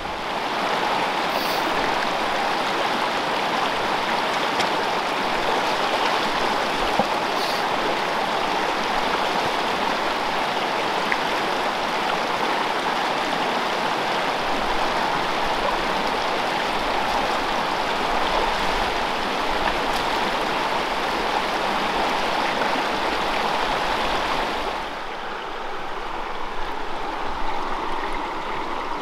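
Steady rushing of a small freestone mountain stream running over its bed; about twenty-five seconds in it drops slightly and sounds duller.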